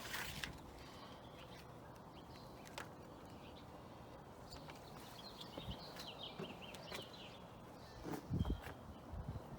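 Faint outdoor ambience of someone walking, with a few short bird chirps around the middle and low thumps near the end.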